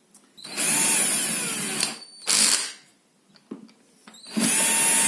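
Power drill driving a long hex-head concrete screw down through a wooden floorboard to bear on the concrete beneath, which stops the board's play and squeak. The drill runs in three goes: a run of about a second and a half, a short blip, then another long run near the end.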